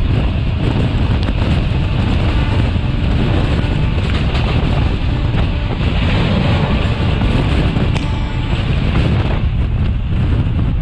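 Loud steady rush of wind and rumbling wheels heard from the open door of a moving passenger train, with a second express train running close alongside on the next track. The noise eases briefly in its middle range near the end.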